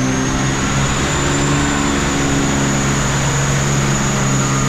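Holden VL Commodore's RB30 straight-six running at a steady speed in the chassis dyno rollers: an even, constant drone with a thin high whine held over it.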